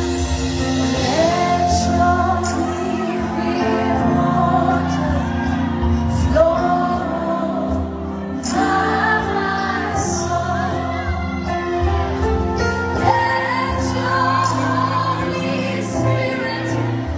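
Woman singing a gospel worship song live into a microphone with a band, holding several long notes.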